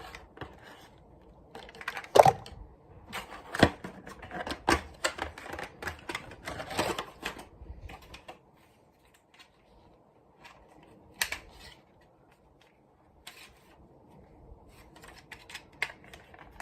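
Irregular clicks and clacks of toy trucks being handled, thick for the first eight seconds and only a few scattered ones after that.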